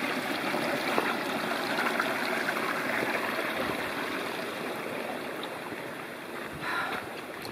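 Small mountain stream running over rocks, its sound slowly fading over the last few seconds.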